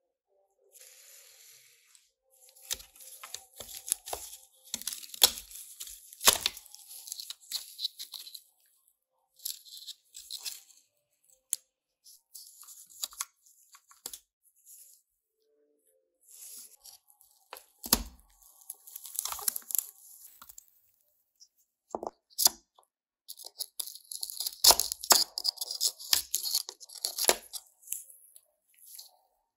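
Rusted parts of a die-cast model car being pried and pulled apart by gloved hands: irregular bursts of scraping and crackling, with a few sharp clicks and knocks.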